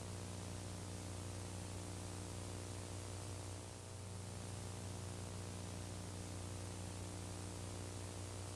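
Steady radio static hiss over a low, constant hum, the background noise of an old air-to-ground radio recording.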